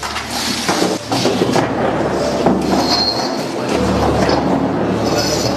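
Chairs scraping and knocking on the floor and people shuffling as a group sits down around a table, a continuous busy clatter.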